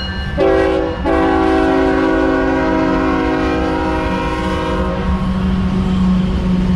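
CSX freight locomotive's multi-chime air horn sounding a short blast and then a long one that stops about five seconds in, over the steady low rumble of the diesel locomotives and train.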